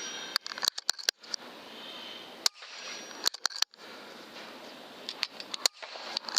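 A run of sharp clicks and pops, several in quick clusters, over a steady background hiss, with abrupt moments where the sound drops out entirely.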